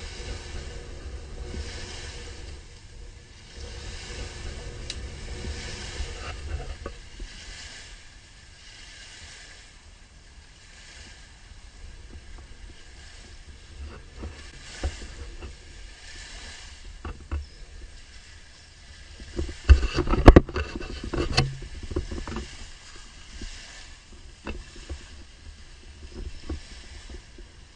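Wind buffeting the microphone as a low rumble, with small waves washing against the shore in slow swells of hiss. About two-thirds of the way in there is a short run of loud knocks and crackling as the camera is handled among branches.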